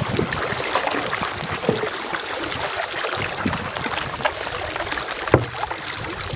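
Canoe paddling: water swishing and trickling off the paddle blade as it dips and lifts through calm water. There is a single sharp knock about five seconds in.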